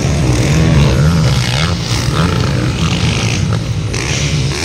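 Motocross dirt bike engines revving hard, their pitch rising and falling again and again as the riders work the throttle over the track.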